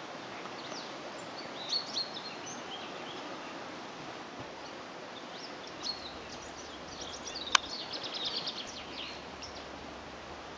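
Small birds chirping and calling over a steady outdoor hiss, the calls coming thickest a little past the middle. A single sharp click, the loudest sound, about seven and a half seconds in.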